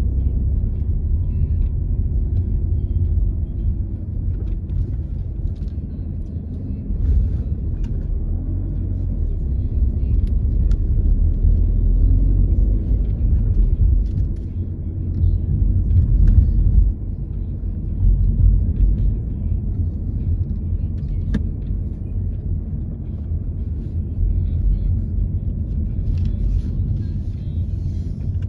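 Car driving slowly along a town street: a steady low rumble of engine and tyre noise.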